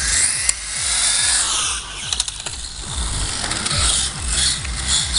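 Radio-controlled car driving fast across asphalt, its electric motor whining, over a steady low rumble.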